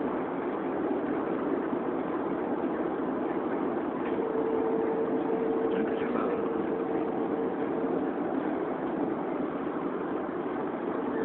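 Steady road and engine noise heard from inside the cabin of a moving car, with a faint steady whine that comes in about four seconds in and fades out a few seconds later.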